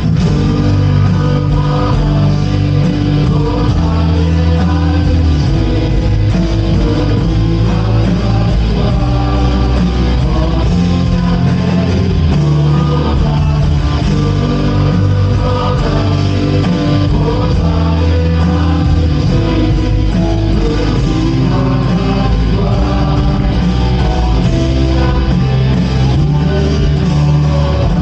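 A contemporary worship band playing a praise song at full level, with guitars and bass and singing over them.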